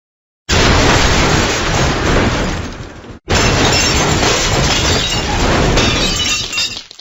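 Two cartoon sound effects of glass shattering, one after the other, each a loud crash of breaking glass lasting about three seconds and tailing off. The second ends in a high tinkle of falling shards.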